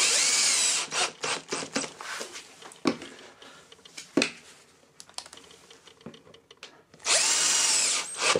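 Cordless drill-driver driving screws through a small metal hinge into a door panel: a run of about a second at the start and another near the end, with clicks and taps of screws and handling in between.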